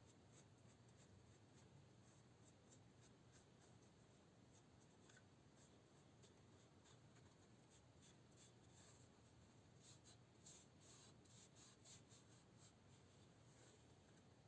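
Near silence with faint, quick scratching or rubbing strokes, busiest about ten to twelve seconds in.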